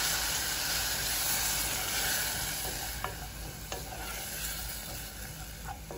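Chili flakes and onion in sesame oil sizzling in a pot, a splash of water just added, the sizzle slowly dying down as a wooden spoon stirs them. The spoon gives a few light knocks against the pot.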